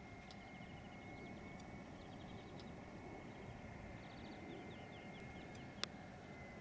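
Faint outdoor ambience of small birds chirping in short trains of quick high ticks, over a low even rumble of background noise and a thin steady high tone. A single sharp click near the end.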